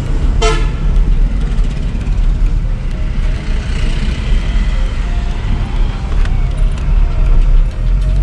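Steady low road rumble of a moving vehicle, with one short horn toot about half a second in.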